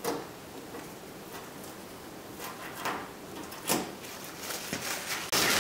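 Protective plastic film being peeled off a new headlight lens: a few short crackling rips and rustles, the loudest just before the end.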